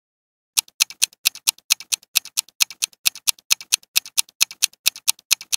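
Ticking countdown-timer sound effect, starting about half a second in: about four sharp ticks a second, with fainter ticks between the loud ones.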